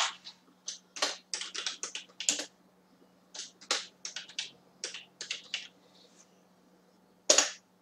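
Typing on a computer keyboard: two quick runs of keystrokes, then one louder single key press near the end.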